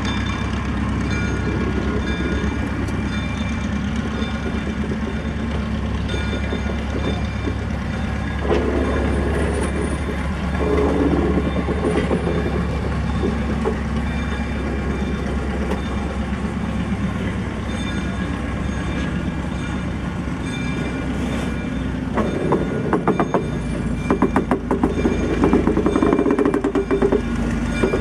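Engine of the 1943 Plymouth No. 9 locomotive running steadily as it shoves a passenger coach slowly along the track. Toward the end, as the coach passes close by, its wheels click over the rail joints.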